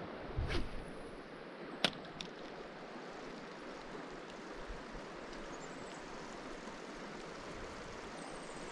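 Steady rushing of a shallow river flowing over stones. A brief swish of a spinning rod being cast comes about half a second in, and a single sharp click follows just before two seconds in.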